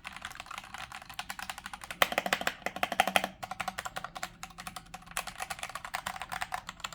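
Fast typing on a DeepCool KG722 65% mechanical keyboard with Gateron red switches: a dense run of key clacks, a little loud and clicky, heaviest about two to three seconds in.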